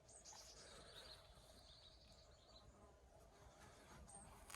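Near silence in the open air, with a few faint high bird chirps.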